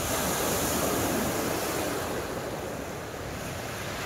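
Ocean surf breaking on a beach: a rush of waves that swells over the first couple of seconds and then eases off.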